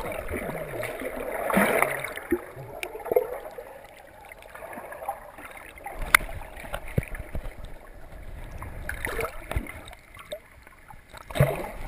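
Underwater sound picked up by a GoPro camera submerged in the sea: muffled, irregular sloshing and gurgling water with a few sharp clicks and knocks, swelling louder near the start and again near the end.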